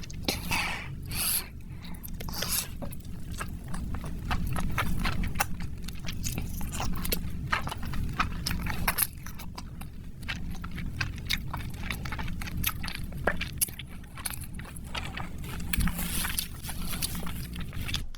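Close-miked wet chewing and mouth sounds of someone eating food dipped in sauce: many quick, irregular smacks and clicks over a low steady hum.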